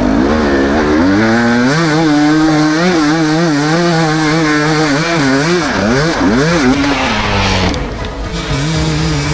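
Enduro dirt bike engine revving hard on a steep hill climb, its pitch rising and falling as the throttle is worked, then easing to lower revs about eight seconds in.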